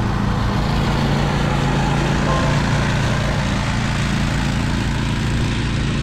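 An engine running steadily at a constant speed, close to the microphone, with heavy wind noise; it cuts off suddenly at the end.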